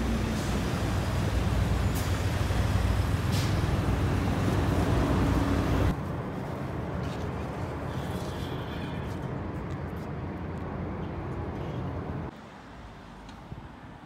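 Road traffic with buses and cars running, a heavy low rumble. The sound drops abruptly about six seconds in to a quieter outdoor hum of distant traffic, and drops again near the end.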